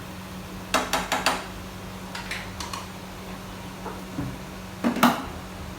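A cooking utensil knocking and scraping against a pan while stirring chicken: a quick run of four clinks about a second in, a few lighter taps, and a louder knock near the end.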